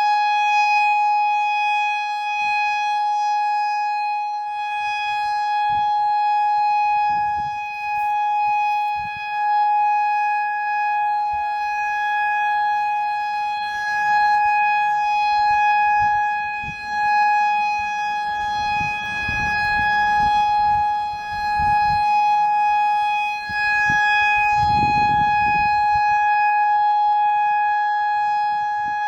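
American Signal EOWS 612 electronic outdoor warning siren sounding a steady, unwavering tone during a tornado drill test. Intermittent low rumbles come and go underneath.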